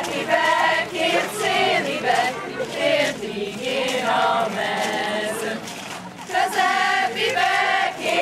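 A group of women singing a Hungarian folk song together in phrases, with a short break between lines about six seconds in.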